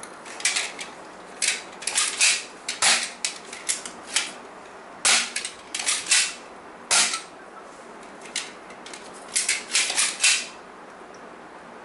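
BoomCo toy dart blaster firing again and again, its Smart Stick darts smacking onto the target: a run of sharp snaps in irregular clusters, with a short lull past the middle.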